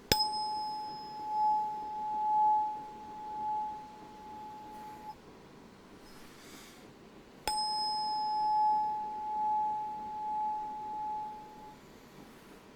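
Tuning fork struck twice, several seconds apart. Each strike rings out as a steady pure tone with a bright metallic attack, swelling and fading in loudness for about four to five seconds before dying away.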